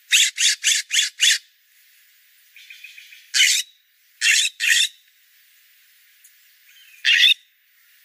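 Scrub-jay giving harsh, raspy calls: a quick run of five at the start, then one, then a pair, and a last one near the end.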